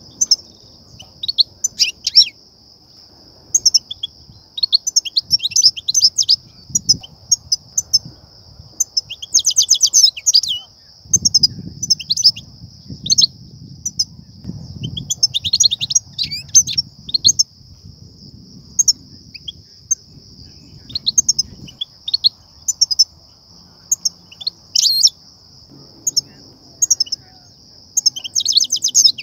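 European goldfinches calling: quick, sharp chirps and bursts of rapid twittering in clusters, the excited 'betbeta' calls that goldfinch trappers play to stir up and draw in goldfinches. A steady high-pitched hiss runs underneath.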